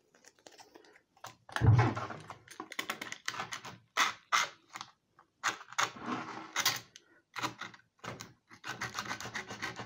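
Skateboard griptape being scraped with a hand tool along the edge of the deck, a run of short, uneven rasping strokes with a louder knock about a second and a half in. Scraping the grit along the edge thins it so the overhang can be trimmed off with a knife.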